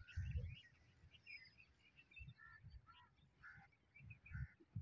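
Birds chirping and calling in many short, quick notes across open fields, with a few low muffled rumbles of wind or handling on the microphone.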